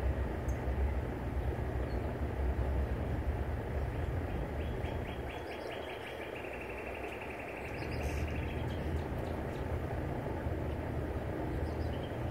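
Wind rumbling on the microphone, with a small bird singing a rapid trill of high, dry notes in the middle for about three seconds.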